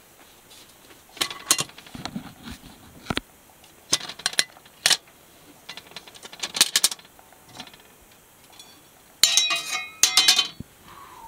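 Metal clicks and knocks of a Seth McGinn's CanCooker's latch clamps being worked open. About nine seconds in comes a louder ringing clatter as the lid comes off.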